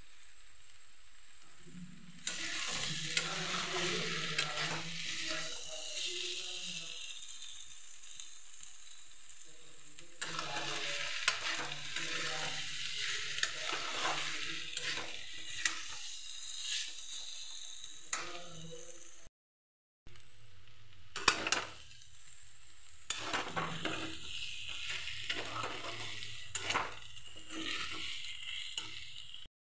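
Potato and jackfruit sabzi sizzling as it fries in a metal kadhai, while a metal spatula stirs it and scrapes the pan. The stirring comes in irregular scraping strokes from about two seconds in, over a steady frying hiss.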